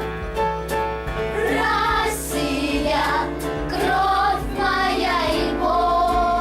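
Children singing a pop song over an instrumental backing track, with held, wavering sung notes.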